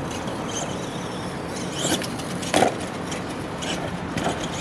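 Battery-powered R/C monster truck driving over the freestyle ramps, with a short impact knock from the truck about halfway in and a smaller one just before it, over a steady noisy background.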